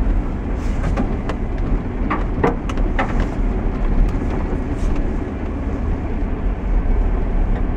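A vehicle rolling slowly over a rough, potholed dirt driveway: a steady low rumble with scattered knocks and rattles as it jolts over the bumps.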